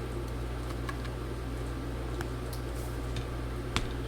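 A few faint, sharp clicks from a small precision screwdriver and screws being handled and driven into a laptop's trackpad mount, the clearest one near the end, over a steady low hum.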